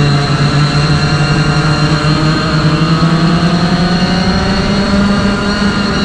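Racing kart engine under full acceleration out of a corner, heard from the driver's helmet, its note climbing steadily as speed builds.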